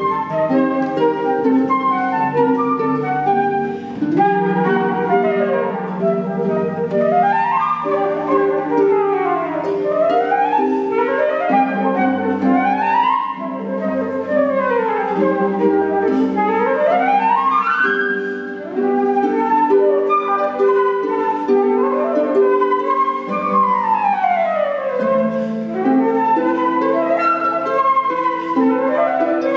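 Flute and concert harp playing together, the flute carrying the melody over the harp. Fast runs sweep up and down in pitch through most of the passage.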